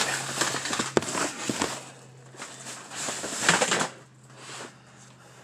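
Cardboard shoebox being pulled out of a box and handled, its cardboard scraping and rustling in two rough spells, with a sharp knock about a second in.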